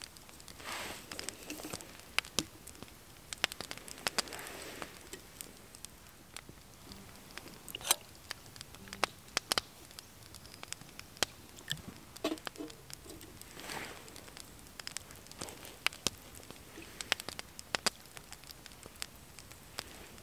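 Small wood fire crackling, with irregular sharp pops and snaps scattered throughout.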